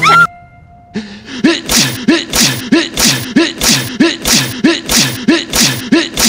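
A brief rising vocal exclamation, a short lull, then one short, breathy man's vocal grunt looped over and over at about three times a second, a YouTube Poop stutter edit of a cartoon voice.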